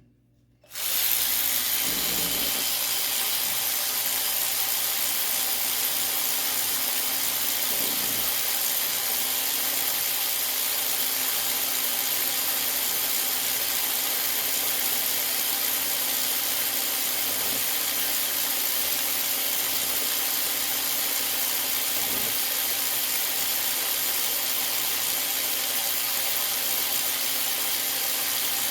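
Cordless electric ratchet's motor and gearhead running continuously at free speed with the trigger held, a steady whir starting about a second in, during an RPM check of its advertised 210 RPM.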